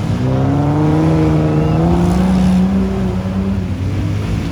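Off-road 4x4's engine revving hard under load, its pitch climbing steadily for about two and a half seconds, then falling away near the end.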